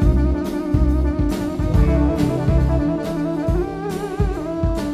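Live band playing: electric guitar, keyboard and bass guitar over regular drum hits, with a lead line that wavers in pitch coming in late.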